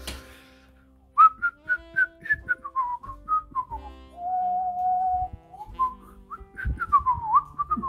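A person whistling a tune: a quick run of short notes, one long held note in the middle, then more quick notes near the end.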